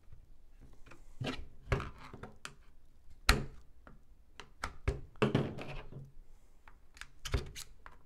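A string of sharp clicks and knocks as the self-captured trigger-pack pins are punched out of an IWI X95 rifle, the loudest about three seconds in.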